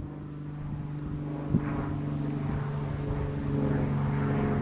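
Cessna 172's four-cylinder piston engine droning steadily and slowly growing louder, over a steady high chirring of crickets.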